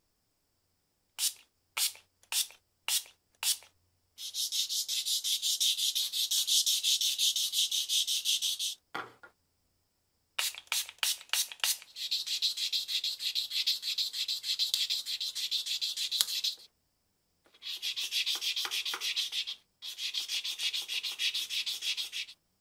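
Fine P1500 sandpaper wet-sanding the antique metal lighter case by hand. First come about five single strokes, then several runs of fast, continuous back-and-forth rubbing with short pauses between them.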